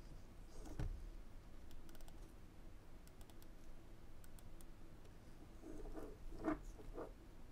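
Faint handling sounds at a watchmaker's bench: fingertips in rubber finger cots press and shift a tiny watch movement in a plastic movement holder. A light click comes about a second in and a few tiny ticks follow, then a cluster of soft knocks near the end.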